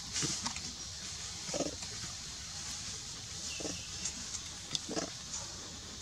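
Long-tailed macaques making three short, soft, low grunts, about a second and a half to two seconds apart, with a faint brief squeak in between. A steady high hiss runs underneath.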